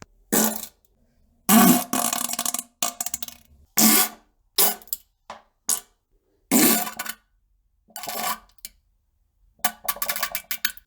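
A run of about ten separate fart sounds, short and long, each cut off by silence; the longest, about a second and a half in, lasts a little over a second.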